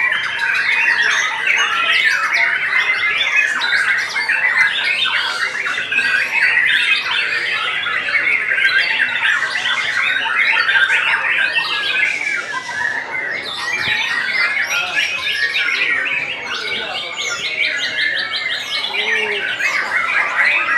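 White-rumped shamas (murai batu) singing in dense, overlapping song, varied phrases tumbling over one another with no break. In the last few seconds comes a long, fast run of rapidly repeated notes.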